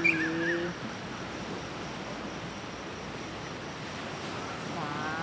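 Steady seaside background noise of gentle surf washing on the shore.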